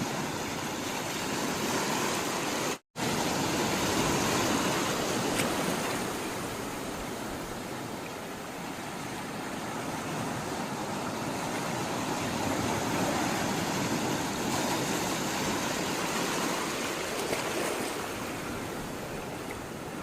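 Sea water rushing and washing steadily, swelling and easing slowly. It cuts out to silence for a split second about three seconds in.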